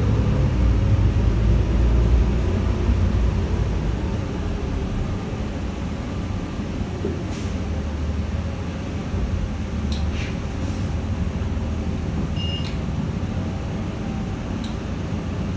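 Cabin sound of a New Flyer Xcelsior XN40 city bus underway: its Cummins L9N natural-gas engine and road noise make a steady low rumble, louder for the first few seconds and then settling lower. A few faint clicks and rattles sound over it.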